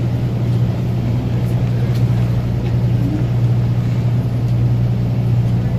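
A boat's engine running steadily with a constant low hum, under a haze of wind and water noise.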